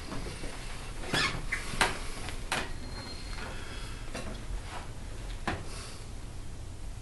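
Handling noise: a handful of light knocks and rustles and one brief squeak, over a low steady hum.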